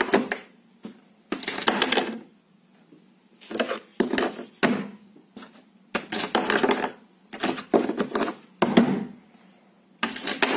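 Round metal cable-grommet cap rattling and clattering against a wooden desk and its cable hole, in a run of short bursts with silent gaps between them.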